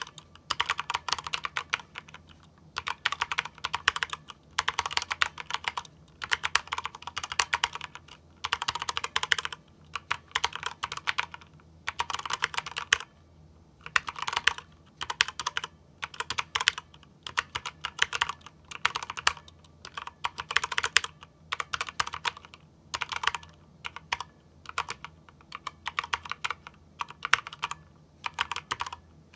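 Typing on a Razer DeathStalker V2 Pro low-profile keyboard with linear red optical switches: rapid runs of keystrokes in bursts of a second or two with short pauses between. A quiet, non-clicky typing sound.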